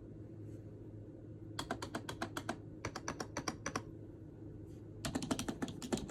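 Typing on a Snpurdiri 60% compact gaming keyboard: runs of quick keystrokes that begin about a second and a half in, pause briefly, then resume near the end.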